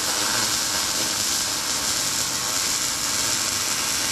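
Lincoln wire-feed (MIG) welder laying a continuous bead on a steel driveshaft-loop part: a steady crackling sizzle from the arc that cuts off right at the end.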